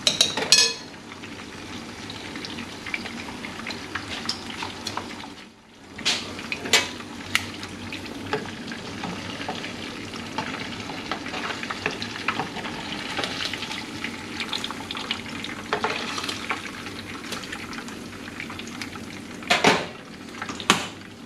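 Seasoned pompano fillets frying in hot oil in a pan, a steady crackling sizzle that briefly drops away about five seconds in. A few sharp clinks of cookware stand out, the loudest near the start and near the end.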